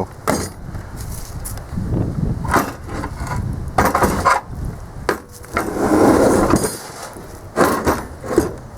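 Irregular clunks, knocks and scrapes of the cut-off steel air tank being wrenched loose from the compressor frame and handled.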